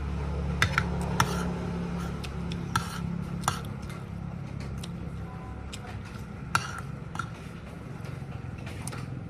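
Metal spoon and fork clinking and scraping against a plate while eating, about seven sharp clinks spread through, several in the first second and a half, over a steady low hum.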